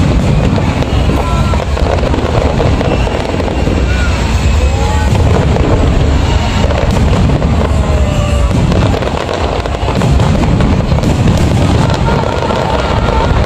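Aerial firework shells bursting in a dense, continuous barrage, one boom running into the next with no break.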